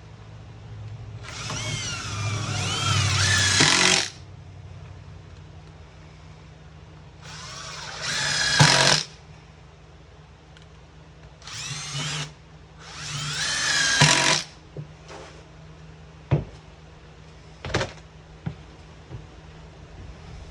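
Power drill driving #8 GRK screws into shower-base sheathing in four runs, each whine building and then stopping sharply as a screw seats. Two sharp knocks follow near the end.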